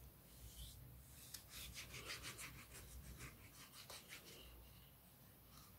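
Tip of a liquid glue bottle drawn back and forth across cardstock, a faint scratchy rubbing in many short strokes from about a second in until near the end.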